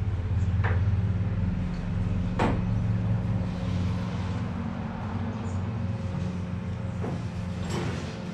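A steady low machine hum runs throughout. A few sharp knocks and clinks of metal tools and parts being handled on a workbench sound over it: one soon after the start, one about two and a half seconds in, and two near the end.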